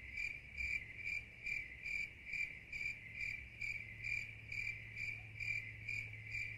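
Crickets chirping, a steady run of short even chirps a little over two a second, cut in abruptly after speech: the stock 'awkward silence' sound effect.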